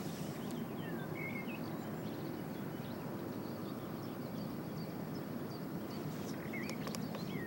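Small birds chirping briefly a few times, near the start and again near the end, over a steady low rushing background noise.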